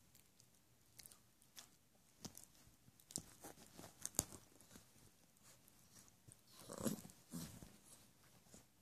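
Labrador Retriever puppy mouthing and chewing at a quilted blanket: faint scattered clicks and smacks, the loudest a short noisy stretch about seven seconds in.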